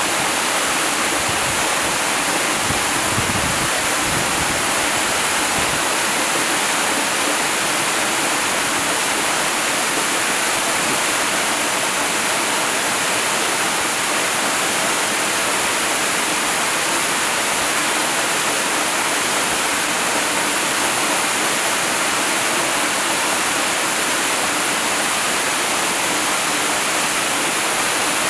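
Waterfall: a steady, even rush of falling water with a strong hiss, and a few brief low rumbles in the first few seconds.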